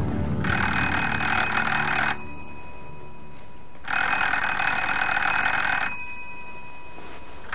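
Bedside telephone bell ringing in repeated rings of about two seconds each, with pauses of about two seconds between them: an incoming call.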